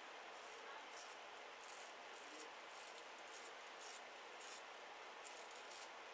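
Turkish shavette with a half blade scraping stubble on the neck in short, faint, scratchy strokes, about two a second, over a steady hiss.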